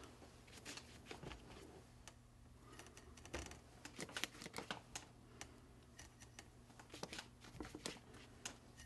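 Faint, irregular scratches and light taps of a flat watercolour brush working paint onto paper, coming more often in the second half.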